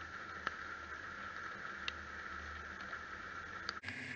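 Low, distant engine rumble from a 1976 Ford F250's 250 cross-flow straight-six, rising and falling under a steady hiss, with a few sharp ticks. The sound changes abruptly near the end.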